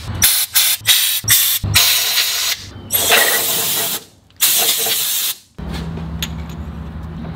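Compressed air from a blow gun hissing in blasts as it blows out the cylinder block's head-stud holes, clearing oil and debris from them. Several short puffs come first, then longer blasts of about a second each, and after about five and a half seconds a steady low hum takes over.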